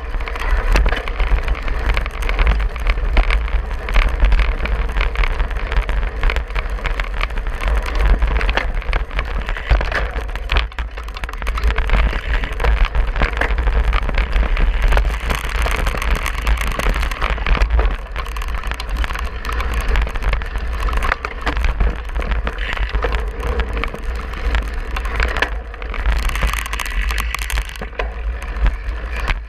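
Cyclocross bike ridden hard over bumpy grass and gravel, heard from a handlebar-mounted camera: a continuous dense clatter and rattle of the bike and camera mount over the rough ground, tyres on turf, and a steady low rumble.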